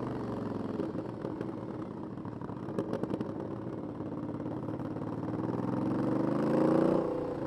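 Aprilia 900 motorcycle's 90-degree V-twin on its stock exhaust: the revs fall away, the engine runs low with a few clicks, then it accelerates with a rising pitch to its loudest point and drops off sharply near the end.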